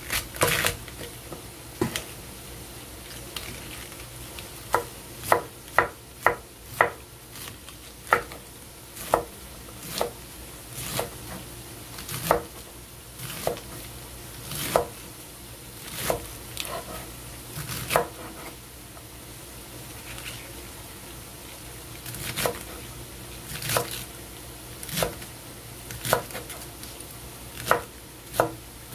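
Kitchen knife chopping cabbage on a wooden cutting board: sharp, irregular chops about once a second, with a pause of a few seconds a little past the middle.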